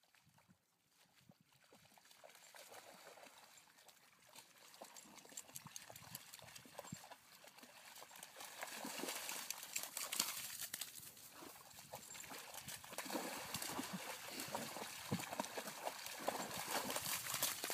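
Dogs running and splashing through shallow puddles on waterlogged grass: a dense patter of splashes that grows steadily louder as they come closer.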